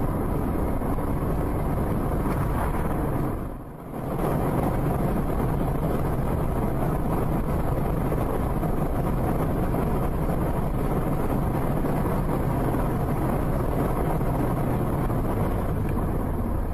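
Steady road, wind and engine noise of a moving car picked up by its dashcam, with a short dip about three and a half seconds in.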